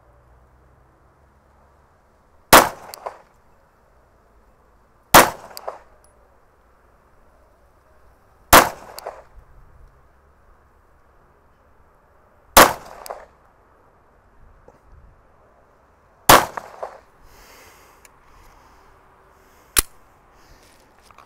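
Five slow, deliberate 9mm pistol shots from a Glock G49, spaced about three to four seconds apart, each with a brief trailing tail. A quieter, sharp click follows a few seconds after the last shot.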